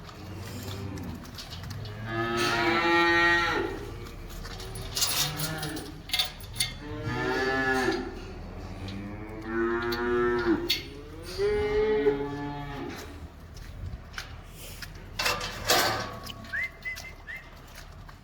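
A cow mooing loudly and repeatedly: about four long, drawn-out lowing calls, with sharp knocks in between.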